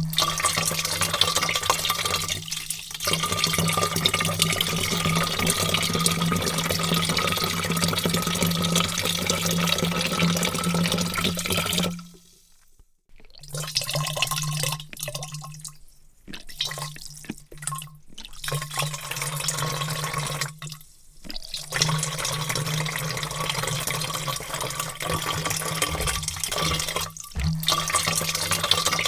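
Water pouring in a heavy stream into a vat: a steady rushing splash that breaks off briefly several times, the longest break about twelve seconds in.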